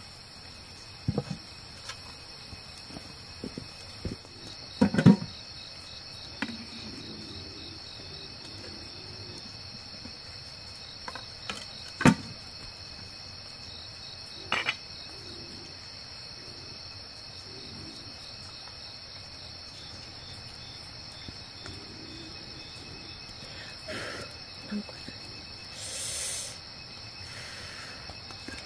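Insects chirping steadily in a high, evenly pulsing drone, with a few sharp knocks and clatters scattered through, the loudest about five and twelve seconds in.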